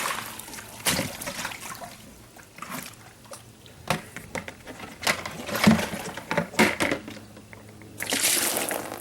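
Dirty water being dumped out and splashing, in several irregular sloshing surges with a few knocks in between; the longest and loudest splash comes near the end.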